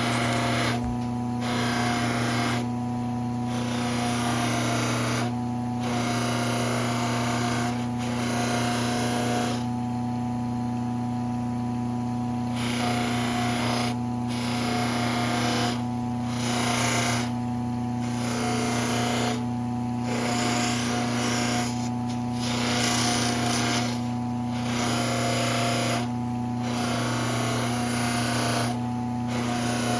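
Powered polishing wheel running with a steady motor hum, as a knife blade is worked against it in repeated passes of a second or two, each a rushing hiss that drops out briefly between strokes, during the final polishing of the blade.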